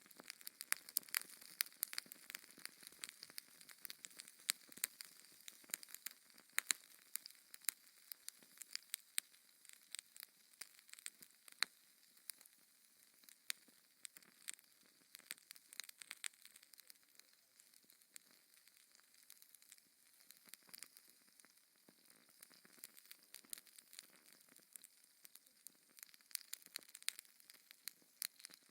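Wood fire in a fireplace crackling, with irregular sharp pops and snaps over a faint hiss, busier in the first half and again near the end.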